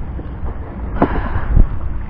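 Wind buffeting the microphone in a low, uneven rumble, with two sharp thumps, one about a second in and a louder one near the end.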